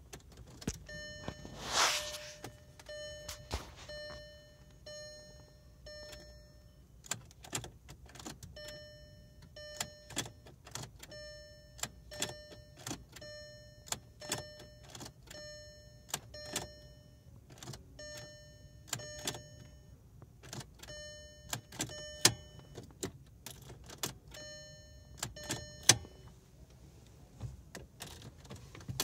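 2002 VW Jetta GLI VR6 turned with the key again and again while hot, the starter not cranking: sharp clicks at uneven intervals over a repeating electronic chime, and the engine never catches. This is the hot no-start fault, which the owner suspects is the ignition switch or the starter relay.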